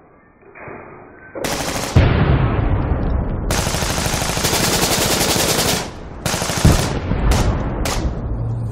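Gunfire sound effects for an animated title card. A heavy boom comes about two seconds in, followed by a long burst of rapid automatic fire and then several single shots with falling tails near the end.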